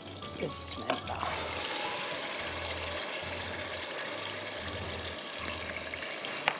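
Grated raw onion hitting hot olive oil in a steel pot, starting to sizzle about half a second in and then frying with a steady sizzle. It is stirred with a silicone spatula near the end.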